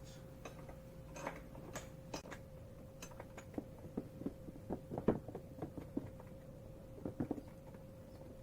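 Irregular light metallic clicks and taps as a scooter rear rack is set in place and its Allen bolts are put in by hand, over a faint steady hum.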